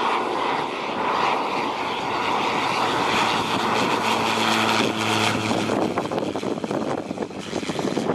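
Cessna 208B Grand Caravan's single turboprop engine and propeller running as the plane flies low past on landing approach; a steady low hum comes in near the middle as it passes closest. Wind buffets the microphone in the last couple of seconds.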